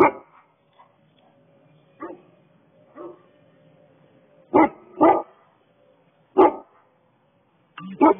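A dog barking in single short, loud barks at uneven intervals, about seven in all, two of them in quick succession a little past halfway.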